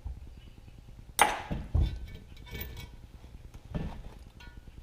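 Metal stove-door hardware clinking and knocking as it is handled: one sharp ringing clink about a second in, then a few lighter knocks.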